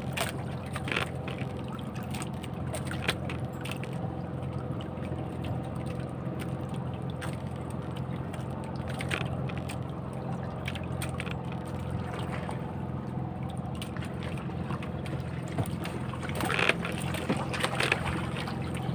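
Outrigger fishing banca's engine running steadily at trolling speed, a constant hum with water noise from the hull. There are scattered light clicks and a brief louder rush about three-quarters of the way through.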